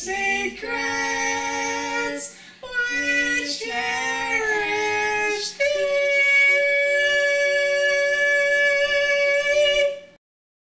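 A man and a woman singing the closing jingle, holding drawn-out notes with short breaks. A last long note is held for about four seconds and cuts off suddenly, followed by silence.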